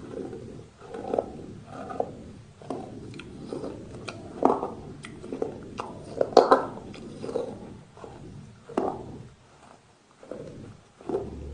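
A person biting and chewing pieces of brick: irregular crunches and gritty grinding in the mouth, with the loudest bites a little past the middle.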